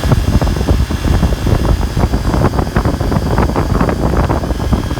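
Air-conditioning condensing unit with a Copeland scroll compressor running, buried under loud, gusty wind buffeting on the microphone.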